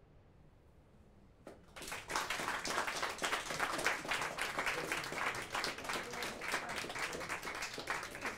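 Audience applauding. Near silence first, then clapping starts about two seconds in and carries on.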